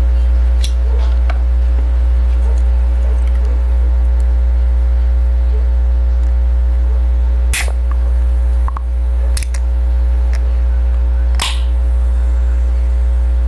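Sharp metallic clicks of a soda can's pull tab being pried and pulled open, a few scattered clicks with the loudest two about seven and a half and eleven and a half seconds in, over a steady low hum.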